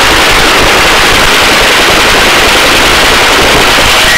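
Helicopter rotor and engine noise heard from inside the cabin with the door open: a loud, steady, rapid chopping that fills the recording during a hover.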